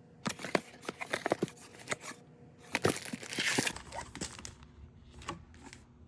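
A trading-card mega box being opened by hand: its packaging crinkles and tears, with scattered clicks and taps of cardboard and a longer tearing, crinkling rustle about three seconds in.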